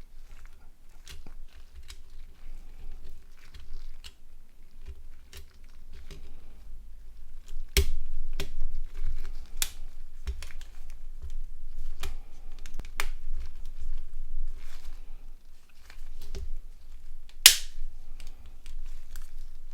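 Irregular clicks, taps and light rustling of small plastic phone parts being handled and pressed together, with several sharper snaps and one loudest click near the end.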